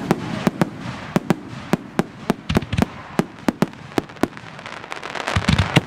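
Aerial fireworks bursting overhead in a rapid, uneven string of sharp bangs, a few each second. The bangs bunch up about halfway through and again near the end.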